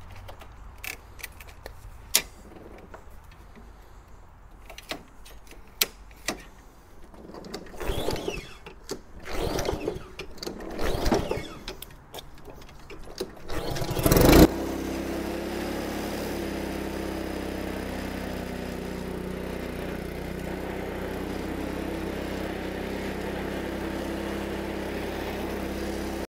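Honda HRX217 push mower's single-cylinder engine being pull-started. A few scattered clicks and knocks come first, then several heavy pulls on the recoil starter. The engine catches with a loud burst about halfway through and then runs steadily.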